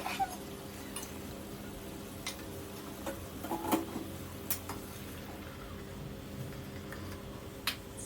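A spoon knocking and scraping against a cooking pot as the beef curry is stirred, with scattered sharp clinks. A steady low hum runs underneath.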